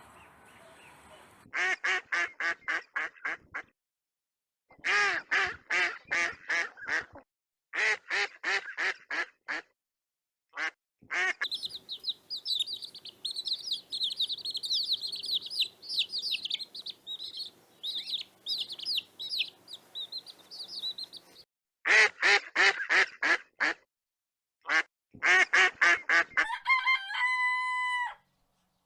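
Ducks quacking in fast runs of short calls, several runs separated by pauses. In the middle there is a long stretch of dense, high-pitched chirping from many small birds, and near the end comes a short held call that steps down in pitch.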